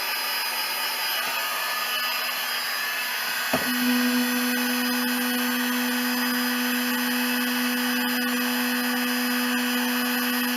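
Electric heat gun blowing steadily, shrinking heat-shrink tubing onto a cable. About three and a half seconds in there is a click, and a steady low hum joins the blowing.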